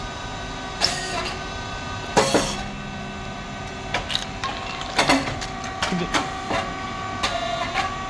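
Rice cake popping machine running a cycle: a steady machine hum, a sharp pop with a short burst of hiss about two seconds in, then a series of clicks and knocks as the moulds move and the thin rice chips are pushed out.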